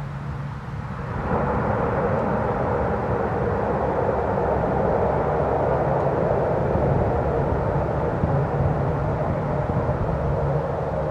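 Antonov An-26's twin Ivchenko AI-24 turboprop engines power up sharply about a second in, then run on in a loud, steady drone with a low propeller hum as the aircraft rolls away down the runway.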